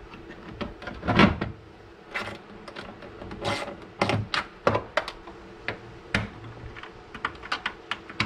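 Aftermarket plastic taillight assembly knocking and clicking against the car's body as it is pushed into its opening and seated, a series of sharp separate knocks, the loudest about a second in, followed near the end by a quick run of smaller clicks as it is worked on from behind.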